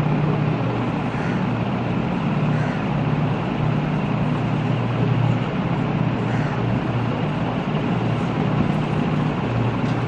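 Steady low mechanical hum with a constant rushing noise over it, unchanging throughout.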